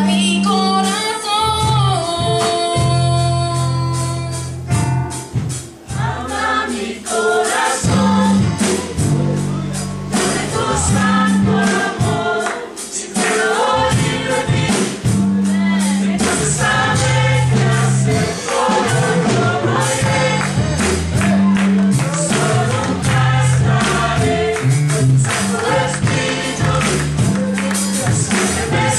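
Mixed choir of men and women singing a gospel worship song over an accompaniment with a steady beat and a strong bass line, opening on a few seconds of held chords.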